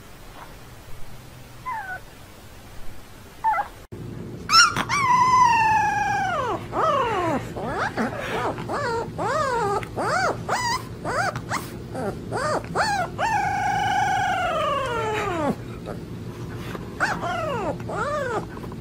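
Husky puppy howling: two long howls that fall in pitch, with a run of short yips and whines between them and a few more near the end. Before that, a newborn puppy gives a few faint squeaks.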